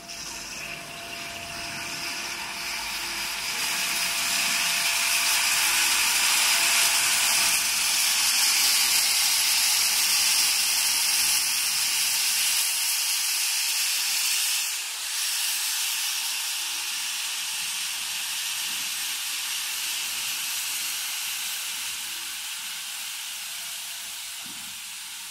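A 24-hole commercial ice cream cone baking machine hissing loudly and steadily. The hiss swells over the first few seconds, dips briefly about two thirds of the way through, then eases slowly. A faint steady whine runs under it through the first third.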